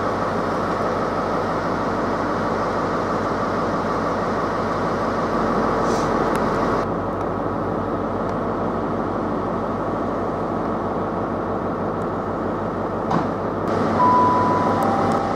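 Diesel engines of Class 43 HST power cars running with a steady, loud hum as the train moves through the station. A short, high, steady beep sounds near the end.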